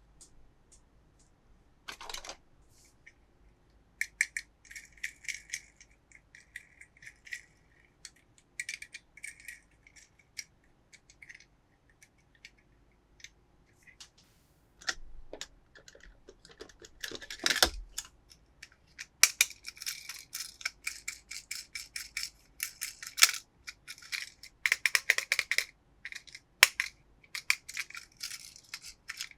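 Toys and plastic packaging being handled in an unboxing: irregular sharp plastic clicks and rattles, sparse at first and denser in the second half, with one louder knock a little past the middle.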